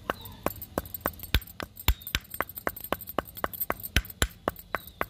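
Stone pestle pounding green cardamom seeds in a stone mortar. It makes a quick, steady run of sharp knocks, about four a second, with a few much harder strikes among them.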